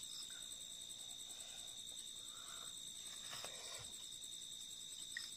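Crickets trilling steadily in the background, a high continuous chirring with a faint pulsing edge. There is a small tap about five seconds in.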